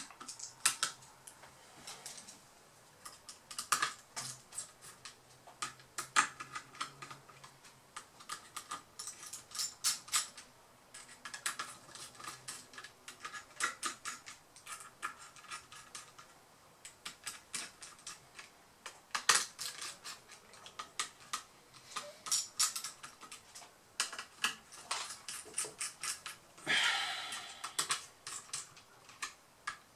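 Small clicks, taps and scrapes of a bare laptop motherboard being reassembled: a RAM module pressed into its slot, then a small screwdriver turning the screws of the copper heatsink. A louder scrape lasting about a second comes near the end.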